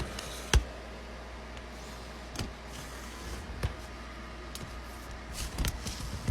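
Handling noise: a few sharp knocks and clicks, the loudest about half a second in and a cluster near the end, over a steady low hum.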